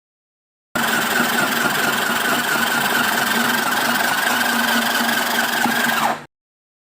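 Mini sewing machine's small electric motor running at a steady speed with an even hum. Just before the end its pitch drops as it slows, and the sound cuts off abruptly.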